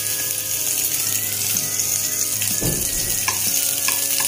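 Garlic cloves and onion sizzling steadily in hot oil in a nonstick frying pan, with a few light knocks from a wooden spatula stirring them in the second half.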